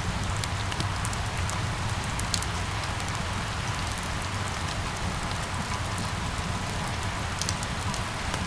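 Steady rain falling: an even hiss dotted with many sharp little drop ticks, over a low steady rumble.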